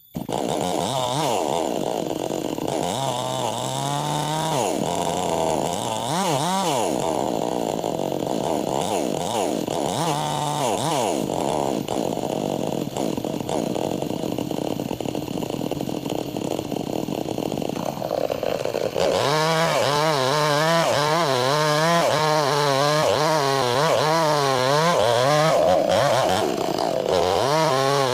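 Two-stroke chainsaw running under load as it rips through wood lengthwise, its engine speed wavering up and down as the chain bites. It starts suddenly and gets louder about two-thirds of the way through.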